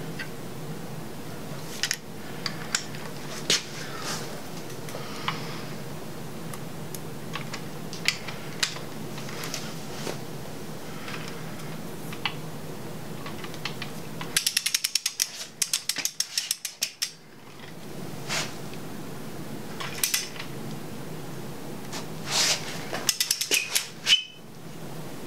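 Socket ratchet clicking in two quick runs, about halfway through and again near the end, as connecting-rod cap bolts are run down on an LS 5.3L V8 bottom end. Scattered metal clicks and taps come from handling the parts, over a steady low hum.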